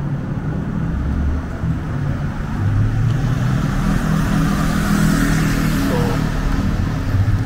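A car's engine running close by as it slowly pulls out of a driveway and onto the road, the low rumble and tyre hiss growing louder toward the middle.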